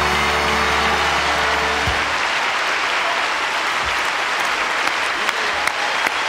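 Large audience applauding at the end of a song, over the orchestra's held final chord, which stops about two seconds in while the applause carries on.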